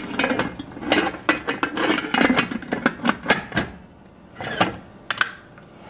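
Stainless steel pressure cooker lid clattering and clicking against the pot and its handle as it is fitted and locked on: a quick run of sharp metal clicks and knocks for the first three seconds or so, then two more single clicks near the end.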